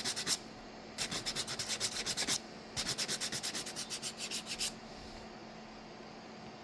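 Sandpaper rubbed quickly back and forth over a 3D-printed plastic knob, about eight strokes a second, in two runs of a second and a half to two seconds with a short pause between. The strokes stop about two-thirds of the way through.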